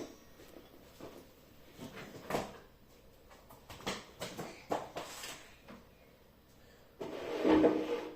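A few scattered light knocks and clunks of kitchen handling, then a louder scrape-and-clunk lasting about a second, about seven seconds in, of the kind a drawer or cupboard makes opening or closing.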